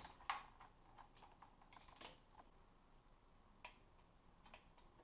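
Faint, irregular sharp clicks of a hand wrench tightening the lower intake manifold bolts on a Jeep Wrangler JK's 3.8L V6 as they are torqued to 200 inch-pounds. The loudest click comes just after the start, with several more spaced unevenly after it.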